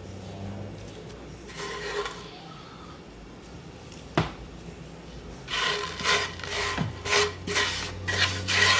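Cooked bacon pieces being sprinkled by hand over shredded cheese: a brief rustle, a sharp click about four seconds in, then a run of short crackling, rustling bursts from about five and a half seconds in.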